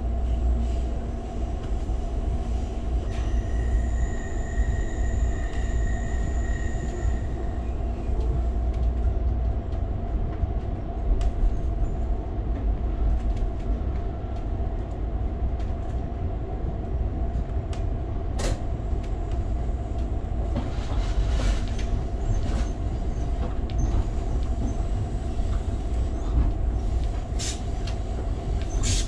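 Moving Amtrak passenger train heard from inside the car: a steady low running rumble with a constant hum. A thin high tone comes in for a few seconds about three seconds in, and a few sharp clicks sound in the second half.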